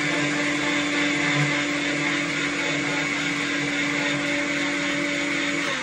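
Electric mixer grinder running at a steady full speed, puréeing raw chicken liver with water. The motor is switched off right at the end and begins to wind down.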